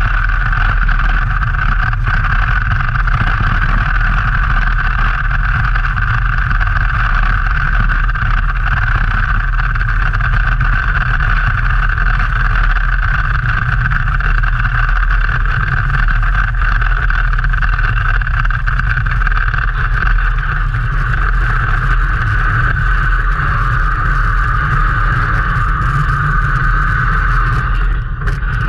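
Bobsled running down an ice track, heard from a camera mounted on the sled: a loud, steady rumble and hiss of the steel runners on the ice, with wind. It dips briefly near the end.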